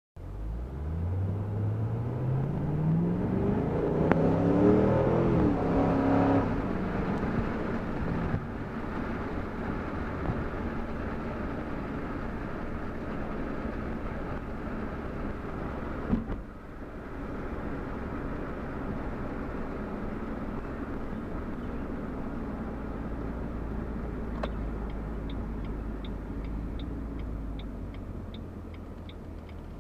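Stock 2005 Ford Mustang GT 4.6L V8 heard from inside the cabin, accelerating with the revs climbing for about five seconds, then dropping back and running steadily at cruise. There is a single thump about halfway through. Near the end a regular turn-signal tick sounds about twice a second over the engine.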